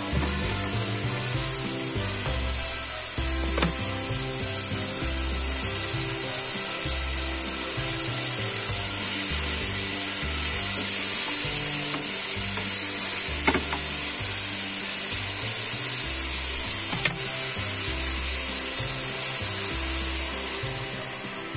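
Lardons and diced mushrooms sizzling steadily in a hot frying pan, with a few sharp clicks, over background music with a bass line.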